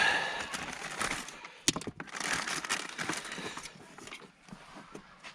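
Plastic trim tools prying and scraping at a car's door card, with scuffing and a few sharp clicks, one about two seconds in, as it works against the panel's retaining clips.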